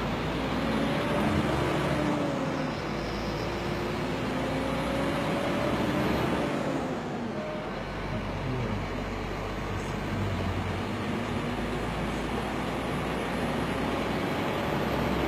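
Scania P410 truck's diesel engine running under way, heard from inside the cab over steady road noise, its note rising and falling several times with a brief drop about seven seconds in.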